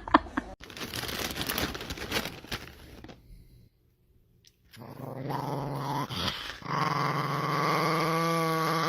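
A dog growling in a long, drawn-out grumble that wavers in pitch near the end, after a noisy stretch and a short gap of silence about three seconds in.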